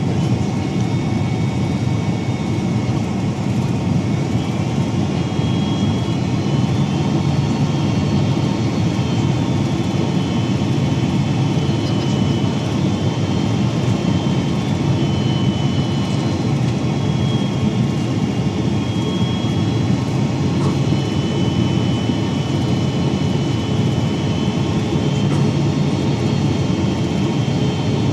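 Steady jet engine and airflow noise of a Boeing 767-300 heard inside the passenger cabin, a low even rumble with faint high whines that come and go.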